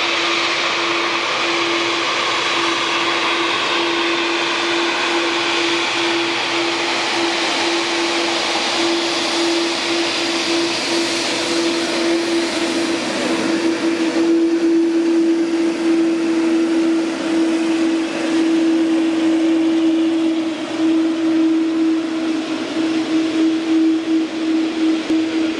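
Boeing 787 jet engines running at taxi power as the airliner rolls past close by: a steady rushing whine over a strong, constant low hum. The sound wavers in level near the end.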